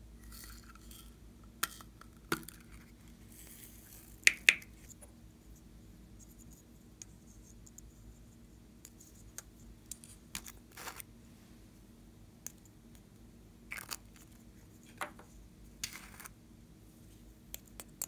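Hard plastic toy containers handled by hand: scattered light clicks and taps, with a sharp double click about four seconds in and a few brief scraping rustles.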